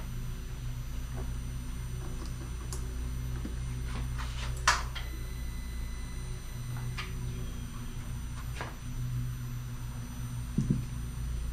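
Steady low hum with a few light clicks and knocks of parts being handled and fitted, the sharpest about five seconds in.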